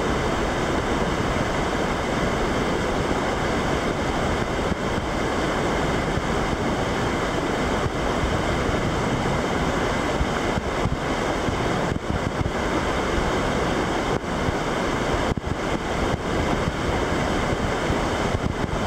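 Whitewater rapid pouring over granite rocks: a steady, loud rush of churning water.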